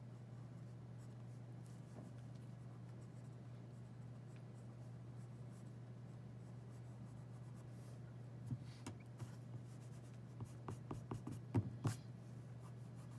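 Pencil strokes scratching on sketchpad paper, faint at first, then a flurry of short quick strokes from about eight seconds in, over a steady low hum.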